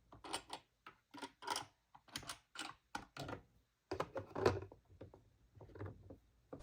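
Plastic toy pieces being handled and set down: a quick, irregular string of sharp clicks and taps.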